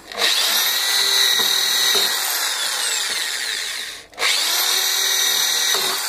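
Corded electric drill with a long bit drilling through the plastic tub of a washing machine. The motor whines for about four seconds, stops briefly, then starts up again.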